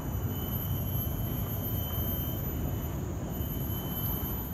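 Steady low rumble of a distant construction site carried through the forest, with a faint thin high tone held through most of it. The sound fades out near the end.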